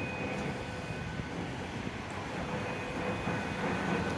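Simplex 4100ES voice-evacuation fire alarm sounding its first-stage alert signal, a slow pulse of 20 beats a minute: a steady tone held about a second, breaking off, then sounding again about halfway through. It carries faintly over steady city traffic noise.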